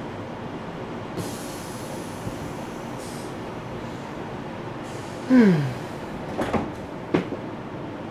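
Train running, with the automatic glass sliding door between compartments working: a hiss as it moves, a short falling whine about five seconds in, then two knocks as it shuts.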